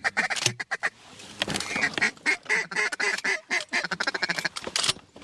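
Duck quacking in fast, rapid runs of short notes, the quacking used to call in mallards.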